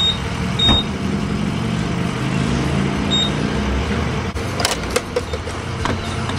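Fuel pump keypad beeping: three short high beeps as buttons are pressed, over a steady low hum. A few clicks and knocks follow near the end as the nozzle is handled.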